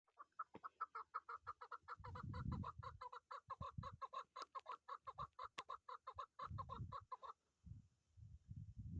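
Chukar partridge calling: a fast, even run of clucking notes, about six a second, that stops abruptly about two seconds before the end. Low rumbling bumps sound underneath at times.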